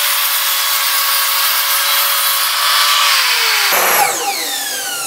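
Mitre saw cutting through a melamine board: the motor's steady whine under the loud rasp of the blade in the cut, a trim cut to square the board's end. A little over three seconds in, the saw is switched off and the blade spins down with a falling whine.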